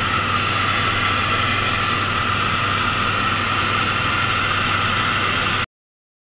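Steady cabin noise of a single-engine light propeller aircraft in flight, engine and propeller heard from inside the cockpit, holding a constant drone with a low hum beneath it. It stops abruptly near the end.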